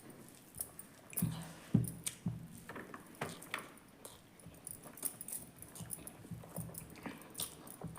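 Close-up eating sounds: a person chewing food, with many small wet clicks and ticks and a couple of louder soft thumps about a second in.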